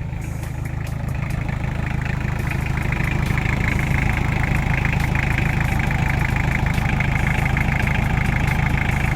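Toyota 2C four-cylinder diesel engine idling steadily with an even clatter, getting louder over the first few seconds. It keeps running without stalling now that its fuel filter, glow plugs and priming pump have been replaced.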